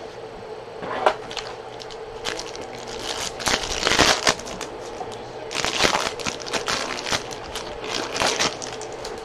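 Foil wrapper of a Topps Chrome jumbo baseball card pack being torn open and crinkled by hand. It comes in several irregular crackling bursts: a short one about a second in, a louder run around three to four seconds, and more from about five and a half to eight and a half seconds.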